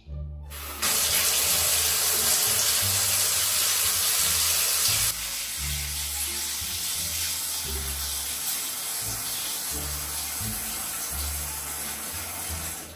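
Water running hard from a bathroom wall tap, turned on about a second in; the flow drops to a quieter steady stream about halfway through and stops near the end.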